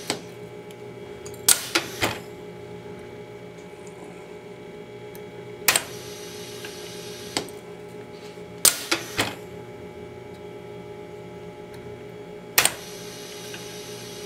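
Toroid hook-winding machine running with a steady hum, with sharp mechanical clacks every three to four seconds, sometimes two or three in quick succession, as the hook cycles through the core to lay each turn of wire.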